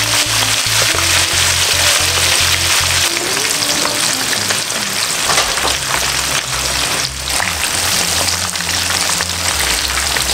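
Chicken pieces deep-frying in hot cooking oil: a steady, loud sizzle of fast-bubbling oil, with background music and a bass line beneath it.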